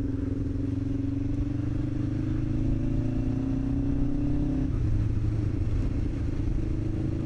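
Motorcycle engine running under way, its pitch climbing slowly for about four and a half seconds and then dropping, as when the rider changes gear or eases off.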